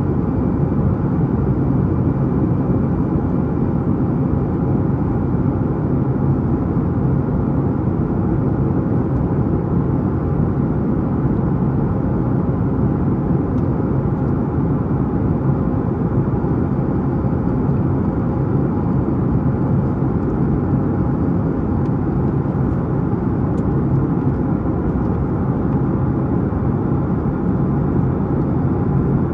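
Steady cabin drone of a Boeing 737-9 MAX climbing after takeoff: its CFM LEAP-1B engines at climb power and the rush of air past the fuselage, heard inside the cabin, with a faint steady hum beneath.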